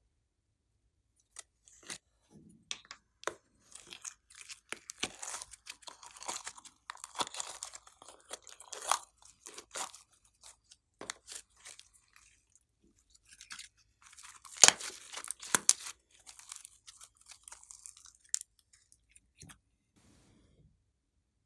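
Orange glossy slime pulled by hand from its container and stretched, with irregular sticky crackling and popping clicks. The loudest cluster of pops comes about two-thirds of the way through.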